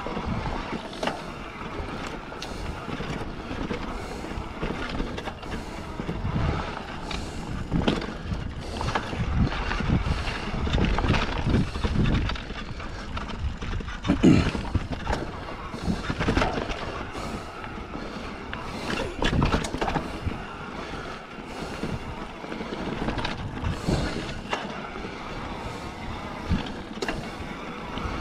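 Mountain bike rolling slowly down a dirt forest singletrack: tyres on dirt, with the bike rattling and knocking irregularly over bumps and roots, one sharp knock about fourteen seconds in.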